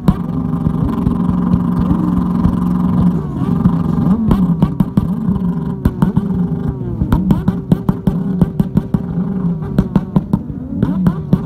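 Several motorcycle engines are held flat out on the rev limiter, making a steady, high-revving drone. A few seconds in, the revs start to drop and climb again and again. From about the middle on, the exhausts crackle and pop with backfires, and flames are shooting from the pipes.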